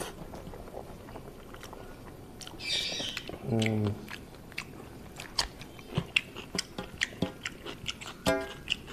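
Close-up chewing of a mouthful of rice mixed with potol posto: wet mouth clicks and smacks that come thicker in the second half, with a short low 'mm' about three and a half seconds in.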